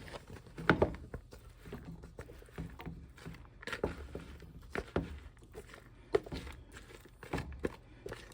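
Irregular clatter of a utensil knocking and scraping against a dish, with soft wet thuds, as cooked chicken thighs and gizzards are added to and worked into the stuffing and cornbread mix.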